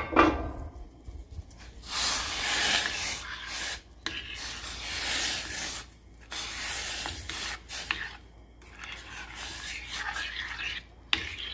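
Metal spoon stirring rice, callaloo and coconut milk in a stainless steel saucepan, scraping against the pan in about four stretches of a second or two with short pauses between them.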